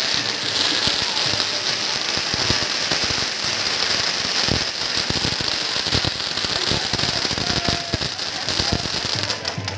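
Ground fountain fireworks spraying sparks: a steady hiss with dense crackling and scattered sharp pops.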